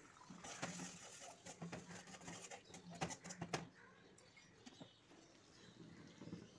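Spatula scraping and clicking against a metal wok while stirring thick sauce, with a faint low note that comes and goes underneath.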